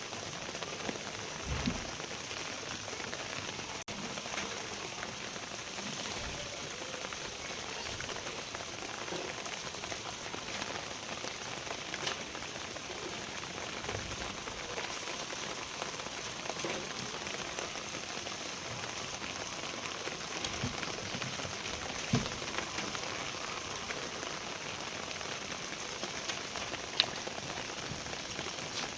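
Steady rain falling, an even hiss throughout, with a few scattered low knocks and a sharp click near the end.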